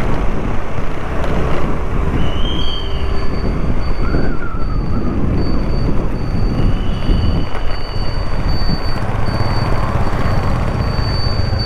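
Motor scooter being ridden along a city road: engine hum with tyre and road noise and wind rushing over the microphone, amid passing traffic. A faint high-pitched tone sounds on and off after the first few seconds.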